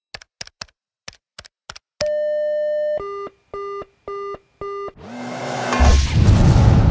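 A run of quick clicks, then one long electronic beep, then four shorter, lower beeps in a steady rhythm. After the beeps a rushing noise swells up and turns loud.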